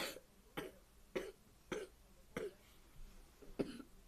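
A young girl coughing in a fit: about six short coughs, one roughly every half second, with a brief pause before the last. She is ill.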